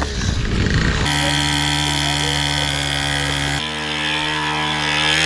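Small two-stroke engine of a sub-50 cc kids' dirt bike running at steady high revs, heard across a few short clips. Its pitch jumps to a new steady note about one second in and again about three and a half seconds in. A rough, scrambling noise fills the first second.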